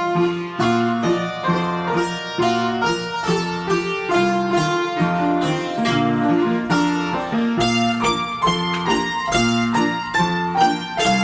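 Small instrumental ensemble playing a lively Belarusian folk dance tune, with many quick, crisply struck notes on string instruments.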